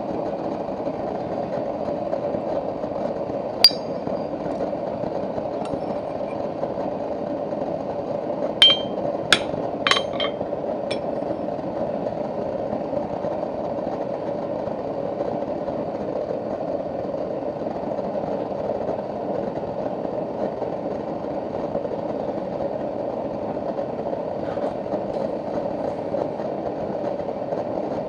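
Light metal-on-metal clinks from steel tools over a steady rushing hum: one clink about four seconds in, then a quick group of four about nine to ten seconds in.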